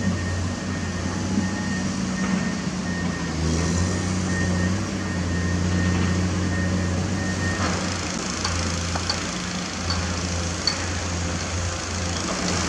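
Komatsu PC210 excavator's diesel engine running steadily under working load, with a faint high whine cutting in and out through the first half. In the second half, knocks and scraping of soil and rock against the steel bucket.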